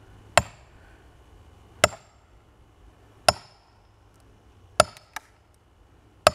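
Axe blows splitting a log: five sharp strikes about a second and a half apart, each with a short ring, and a fainter knock just after the fourth.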